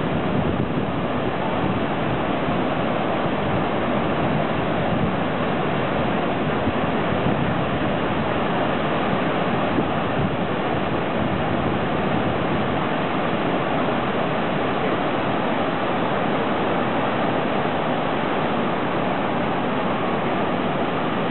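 Surf breaking and washing up the shore, a steady, unbroken rush of waves.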